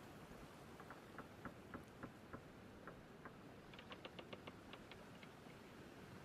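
Faint light clicks over a low hiss, about three a second at first, then quicker and sharper about four seconds in.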